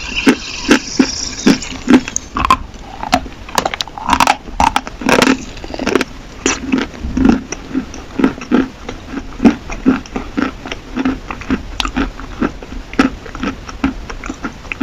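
Close-miked chewing of dry chalk: a steady run of crunches, about two or three a second.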